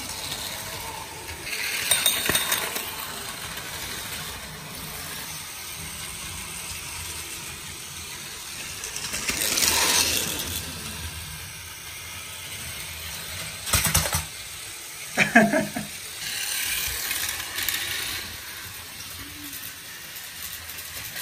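Battery-powered Plarail toy trains running on plastic track, small motors whirring and wheels rattling, swelling as a train passes close about ten seconds in. A few sharp plastic clicks come a few seconds later.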